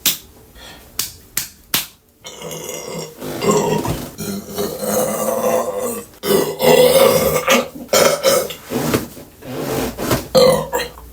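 A woman belching: a run of long, loud belches one after another, starting about two seconds in, with a few short sharp clicks before them.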